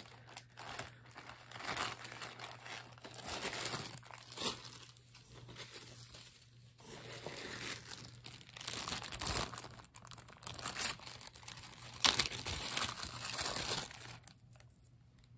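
Clear plastic zip-top bags crinkling and rustling in fits and starts as they are handled, with the loudest crinkle about three-quarters of the way through, then dying down near the end.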